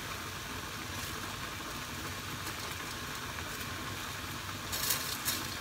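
Steady hiss of broth simmering in a clay nabe pot over a gas burner. A short rustle of leafy greens sounds about five seconds in.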